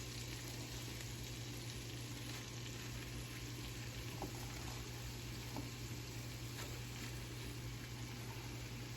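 Melted butter sizzling steadily in a stovetop pot as fresh spinach is added, over a steady low hum, with a few faint light clicks.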